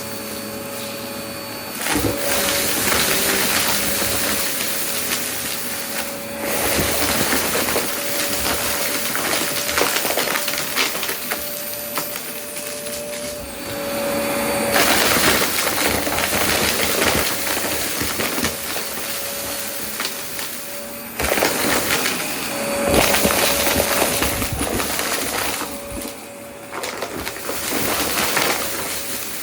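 Vacuum cleaner running with a steady motor whine over a rushing airflow, while debris is sucked up with many small clicks and rattles. The whine drops out briefly a few times.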